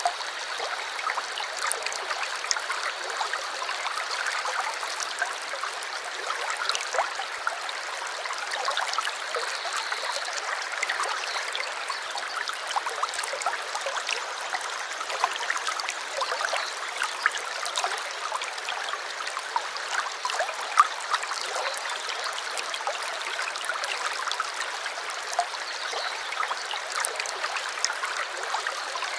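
Shallow brook babbling and splashing steadily over stones, with many small trickles and splashes. A faint, thin high tone sounds over the water for the first ten seconds or so.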